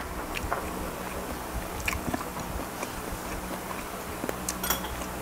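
Close-miked mouth sounds of a man biting into and chewing a garlic-butter prawn: small wet clicks and crunches, with a few louder ones about two seconds in and near the end.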